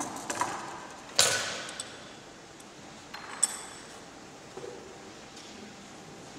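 Knocks and clinks as a block of lapis specularis (crystallised gypsum) and thin sheets split from it are handled on a wooden bench. The loudest knock, about a second in, rings briefly, and a sharper click comes a little past halfway.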